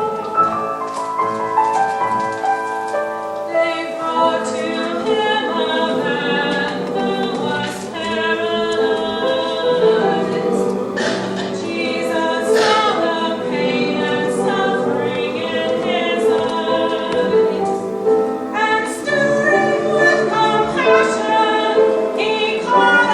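A church choir singing a cantata with accompaniment.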